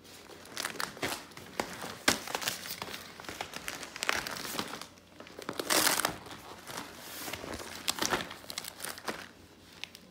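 Crinkling and rustling of plastic toy packaging being handled, in irregular bursts, loudest about six seconds in.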